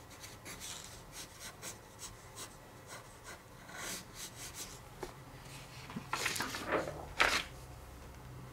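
Pencil sketching on paper: a run of short, light, scratchy strokes, with a few louder strokes near the end.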